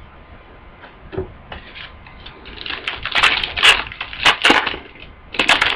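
Crinkling and tearing of a foil trading-card pack wrapper being opened: a few faint crackles at first, then a dense run of loud crackling rustles about halfway through.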